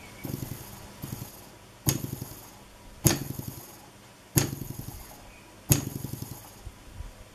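A model free-piston Manson hot-air engine being worked by hand: two soft knocks, then four sharp knocks about 1.3 seconds apart, each followed by a short rattle as the piston snaps back against its rubber-band return.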